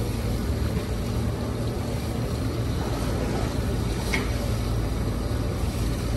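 Superyacht's diesel engines running steadily at low power as it backs into a berth, a low rumble with churning water at the stern. A brief high chirp about four seconds in.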